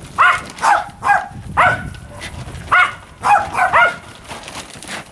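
Small Pomeranian-type dog barking: a string of about nine short, high yaps in quick pairs and threes.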